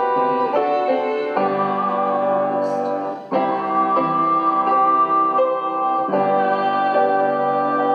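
Upright piano playing slow hymn chords. The chords change every half second or so, then a new chord is struck about three seconds in and held.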